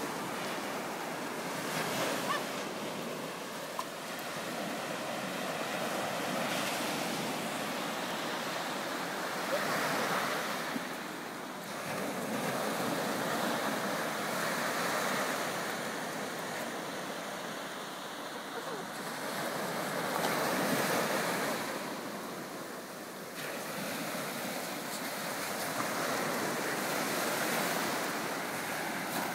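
Small surf breaking and washing up a sandy beach, a steady rush that swells and eases every several seconds.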